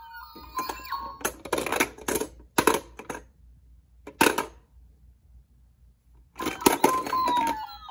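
Hard plastic balls clattering and rattling down through a Fisher-Price Swirlin' Surprise Gumballs toy in several short bursts. Near the end a longer clatter comes with a few falling electronic notes from the toy.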